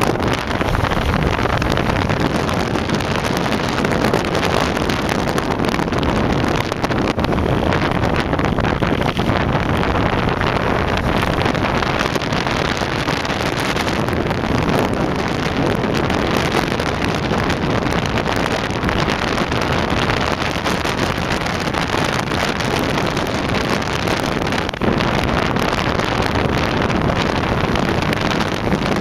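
Honda CBR1000F inline-four engine running at a steady cruise, heard under a heavy rush of wind on the microphone.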